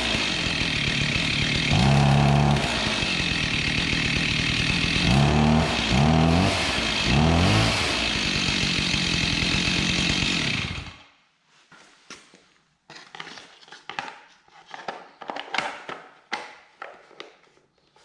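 Stihl MS290 two-stroke chainsaw engine running and revved up and down several times, then cutting off sharply about eleven seconds in. Afterwards only light scattered clicks and knocks.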